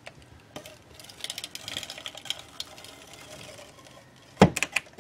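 Stampin' Up Fast Fuse adhesive applicator run along the inside seam of a binder: a soft rasp of rapid fine ticks, followed by a few sharp knocks near the end.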